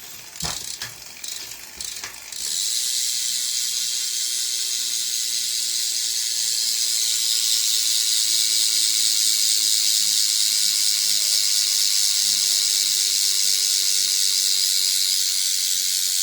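BMX rear hub, a Mirraco M3, ratcheting as the wheel spins freely: a few knocks at first, then a steady, fast, high buzz of clicks from about three seconds in.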